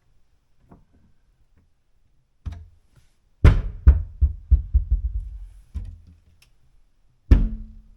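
Wooden cabinet door on Blum concealed hinges being swung open and shut, knocking against the cabinet frame: one knock, then a quick run of knocks and thuds, and another hard knock near the end.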